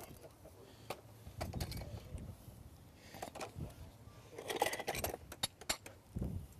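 Light, irregular clinks and knocks of a farrier's metal tools and a steel horseshoe being handled, with a busier run of clinks about four and a half seconds in.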